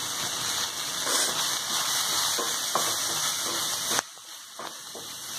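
Chennangi leaves and garlic frying in oil in a kadai: a steady sizzling hiss with a few soft strokes of a wooden spatula. The sizzle drops off sharply about four seconds in.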